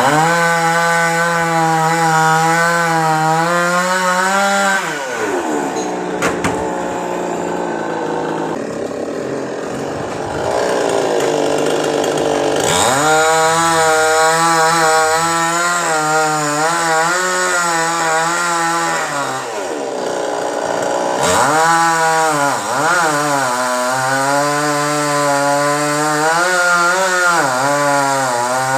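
Chainsaw running at high speed under load, cutting coconut palm wood, its pitch wavering as it bites. It drops back to idle about five seconds in, then revs up and cuts again from about twelve seconds in, with a few quick rev-downs and rev-ups a little after twenty seconds.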